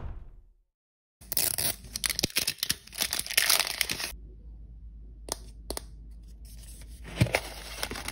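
Plastic wrap being torn and peeled off an L.O.L. Surprise toy ball, a dense crinkling for about three seconds. A few sharp plastic clicks follow, then a louder crack near the end as the plastic ball is pried open.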